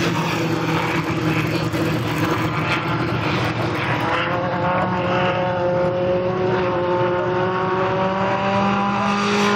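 Sport compact race cars' engines running on a dirt track. In the second half, one engine's note slowly falls in pitch as it eases off.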